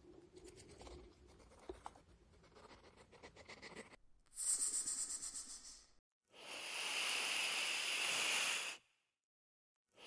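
Faint rustling and scratching of a hedgehog moving through leaf litter, then a louder burst of hissing about four seconds in. After a brief silent break, a snake hisses steadily for about two and a half seconds, then stops.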